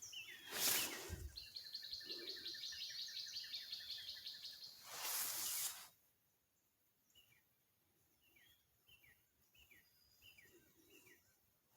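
Birds calling: a rapid trill from about a second in to about four and a half seconds, then a string of short falling chirps in the second half. Two brief bursts of rustling noise, about half a second in and about five seconds in, are the loudest sounds.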